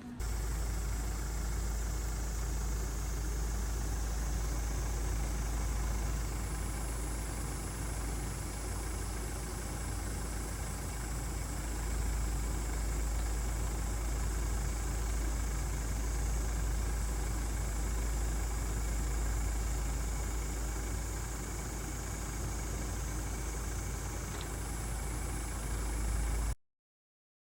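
A vehicle engine running steadily, with a deep, constant rumble under an even hiss. The sound cuts off abruptly near the end.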